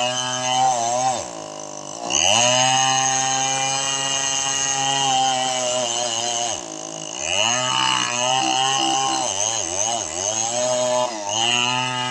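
Chainsaw engine running fast, its pitch dropping sharply and climbing back up about a second in and again about halfway through, with smaller wavers after.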